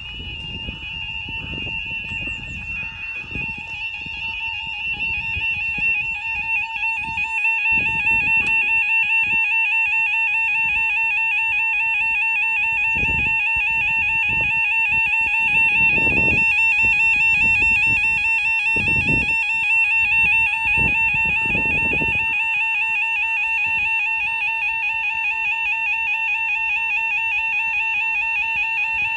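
Level crossing Yodalarm warning alarms sounding a continuous warbling high-pitched tone, growing louder over the first several seconds and then holding steady. Irregular low rumbles come and go beneath it.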